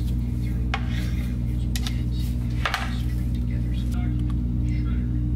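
Kitchen utensils and dishes clinking and knocking a few times, the sharpest one about halfway through, over a steady low hum.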